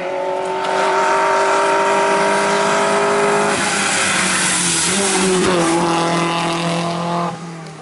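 Rally car engine held at high revs as the car drives past, over tyre hiss on wet tarmac. About halfway through, the engine note breaks and changes pitch, then steadies again and falls away near the end.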